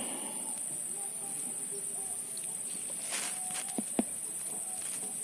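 Insects chirring in a steady, high-pitched drone, with a couple of faint clicks about three and four seconds in.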